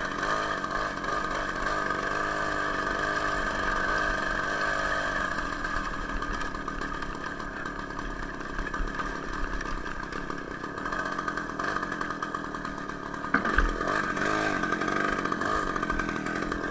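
Two-stroke engine of a homemade moped built from an Ural chainsaw, running under way, its revs rising and falling in the first few seconds and again near the end. A single knock comes about thirteen seconds in.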